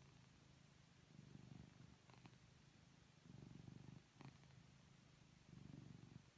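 Orange tabby kitten purring softly as it falls asleep. The purr swells and fades with each breath, about every two seconds.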